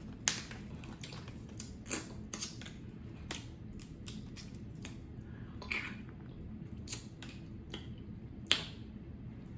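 Snow crab leg shells being cracked and snapped apart by hand: a scattered series of sharp cracks, about seven, the sharpest near the end.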